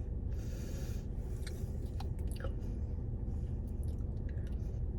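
A person chewing food close to the microphone, with small scattered mouth clicks, over a steady low hum.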